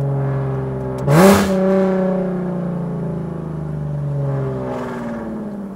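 Straight-piped Nissan 370Z's 3.7-litre V6 (no mufflers, no resonators, test pipes) heard from inside the cabin: a sharp rev blip about a second in as it downshifts, then the exhaust note falls slowly in pitch as the engine slows in gear.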